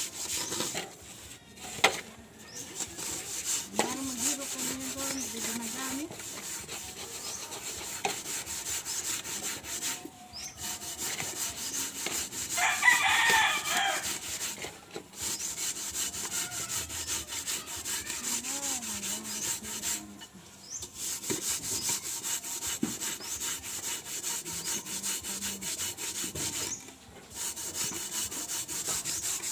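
A hand scrubbing the soot-blackened outside of a rice pot with wet grit: rapid, steady gritty rubbing strokes that stop briefly a few times, scouring off the soot. A rooster crows once about halfway through.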